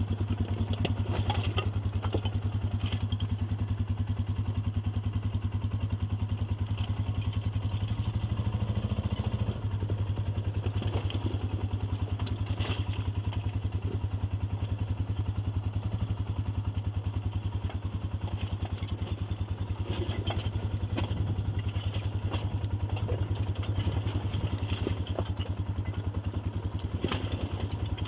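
ATV engine running at a steady low speed while the machine clatters and knocks over rough offroad ground, with rattles and thuds scattered throughout.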